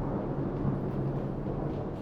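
Thunder rumbling low and continuous over the steady hiss of heavy rain.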